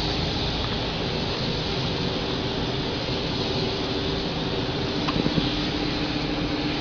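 Steady hiss of a gravity-feed paint spray gun blowing paint onto a car body, over the rush of a spray booth's air and a faint low hum.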